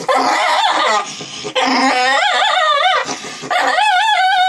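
A small wet dog whining and howling in long, wavering, high-pitched cries, three in a row, in distress at being given a bath.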